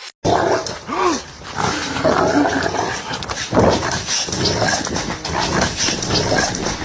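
A dog growling and barking loudly and continuously, starting suddenly just after the start.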